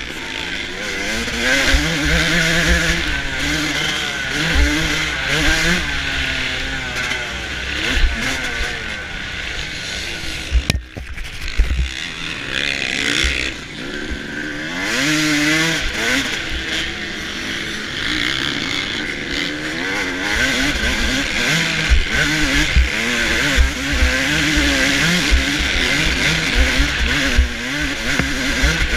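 A 2005 Suzuki RM250's two-stroke single-cylinder engine racing around a motocross track, heard onboard. Its pitch climbs and falls again and again as the throttle is worked through the gears, over a loud rushing noise and low thumps. The engine note drops out briefly about eleven seconds in.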